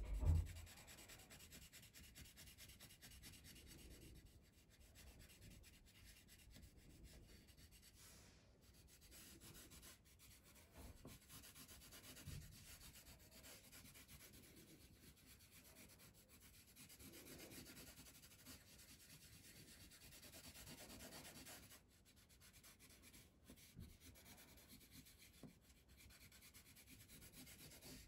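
Coloured pencil shading on paper, using the side of the lead: faint rubbing that swells and fades with each run of strokes. A low thump just after the start is the loudest sound, with a couple of softer knocks later.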